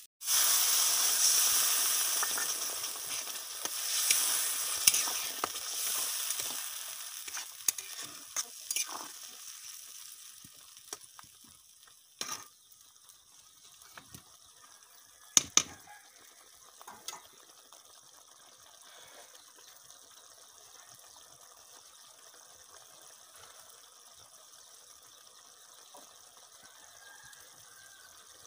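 Water poured into a hot kadai of fried spice paste sets off a loud sizzle that hisses hard at first and dies down over about ten seconds. A metal ladle scrapes and knocks against the pan, with two sharp knocks about halfway through, and a faint simmer is left near the end.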